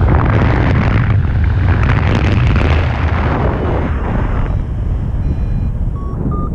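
Wind buffeting the camera microphone in flight on a tandem paraglider, a heavy rumbling that eases after about four seconds. Near the end a paragliding variometer starts beeping, quick short beeps about three a second, the climb signal.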